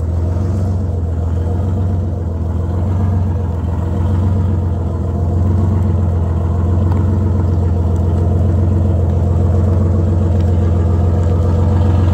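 Detroit Diesel 6-71 two-stroke inline-six diesel of a fire engine running steadily at low speed, a deep even hum with no revving.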